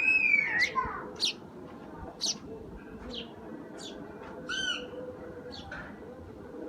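Sparrows chirping: short, sharp chirps about once a second. In the first second a louder, drawn-out call rises and falls in pitch.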